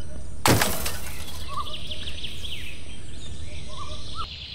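A few short chirping bird calls, each a quick rise and fall in pitch, over a steady background noise, with a sudden short burst of noise about half a second in.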